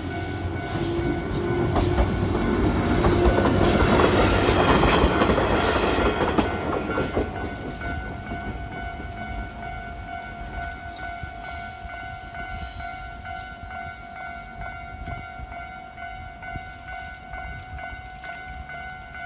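A train passing through a railway level crossing, loudest about four to five seconds in, with wheels clacking over the rail joints, then fading away. The crossing's warning bell keeps ringing in a steady repeating pattern throughout.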